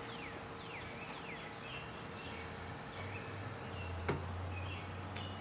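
Birds calling with repeated falling whistled notes and short chirps over the faint steady hum of a Husqvarna Automower 450X robotic lawnmower driving across the grass. A single sharp click comes about four seconds in.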